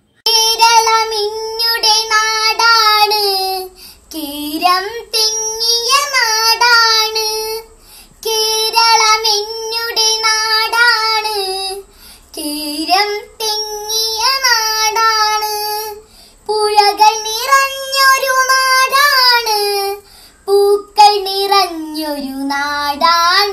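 A young girl singing solo in a Malayalam song, in sustained phrases of a few seconds each with short breaths between them.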